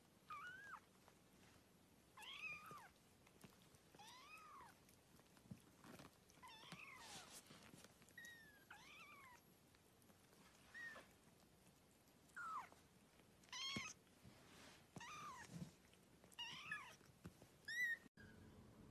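Young kittens mewing: about a dozen short, high cries, each rising then falling in pitch, coming every second or two.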